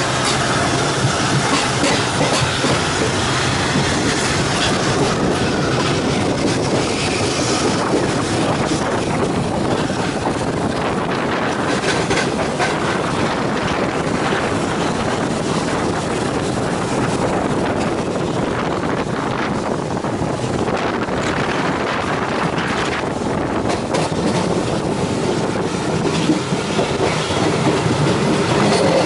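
Passenger coaches of a moving express train running over the rails, heard from an open coach doorway: a steady rumble with continual wheel clatter over the track.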